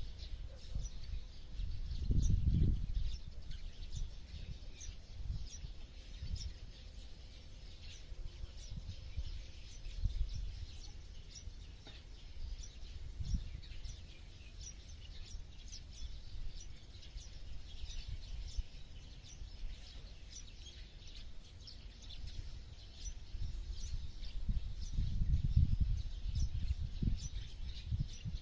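Small birds chirping: many short, high chirps throughout, over a low rumbling noise that swells about two seconds in and again near the end.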